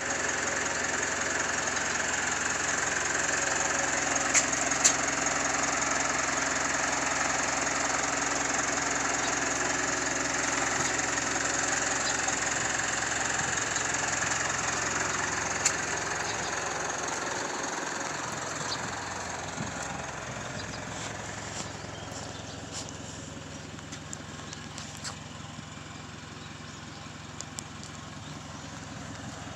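A vehicle engine running steadily, with a few sharp clicks; it cuts in suddenly and grows quieter over the second half.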